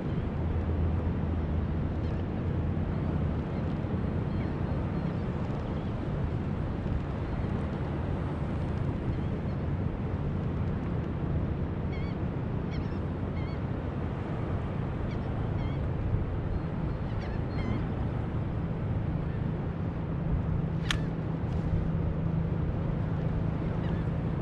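Steady wind and water noise with a low steady hum under it, broken by a few short bird calls in the middle and a single sharp click near the end.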